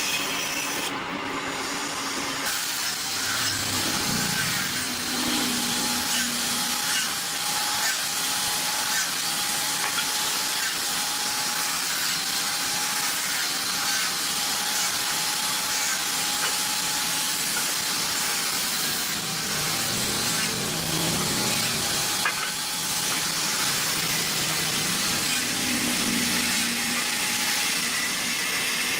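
Steady hissing noise from a running workshop tool, with a faint steady whine through most of it.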